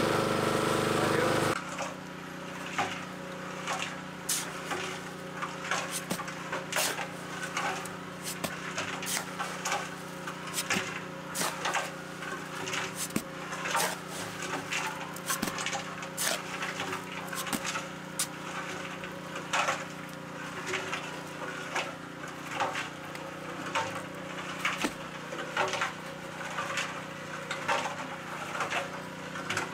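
A cement mixer runs loudly for a moment, then drops to a steady background hum. Over it come irregular sharp knocks and scrapes, about one a second, of hand work with tools and stone in the soil of a post hole.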